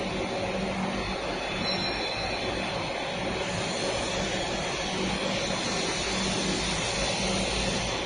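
Steady machinery noise with a constant low hum, unchanging throughout.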